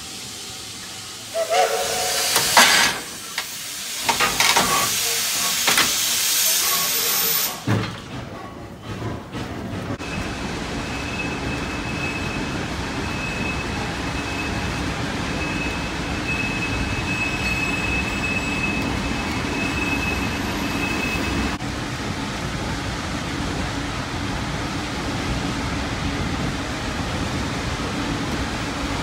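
Shay geared steam locomotives hissing loudly with released steam for about five seconds. Then the train rolls along with a steady rumble of wheels on the track, and a thin high squeal runs for about ten seconds before stopping.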